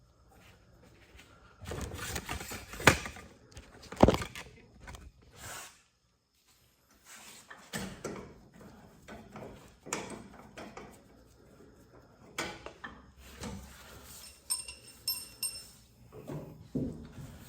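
Irregular metal clanks, knocks and scrapes from a car door and a jack being shifted by hand while the door is hung on new hinges. Two sharp knocks are the loudest, about three and four seconds in. A few short, high metallic squeaks come about three-quarters of the way through.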